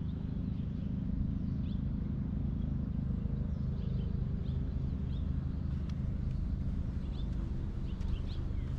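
Small birds chirping here and there over a steady low rumble.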